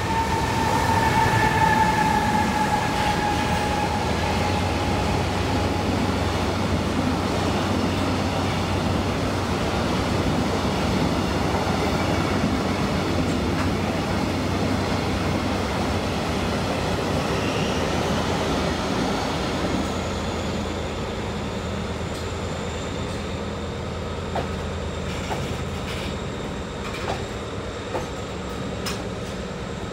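Container freight train of JR Freight Koki 107 flat wagons rolling past at low speed as it pulls out of the station, a steady rumble of wheels on rail. A thin high wheel squeal comes in about two-thirds through, and sharp clicks of wheels over rail joints sound near the end.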